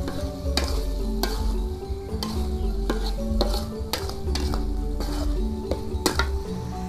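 A metal spatula scraping and clinking against an aluminium wok at irregular strokes, about one or two a second, while food sizzles in hot oil. Background music with sustained low notes runs underneath.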